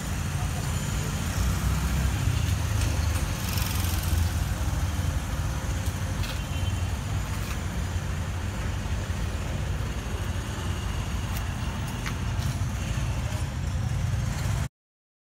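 Steady low rumble of street traffic, with a faint haze of outdoor noise. It cuts off abruptly near the end.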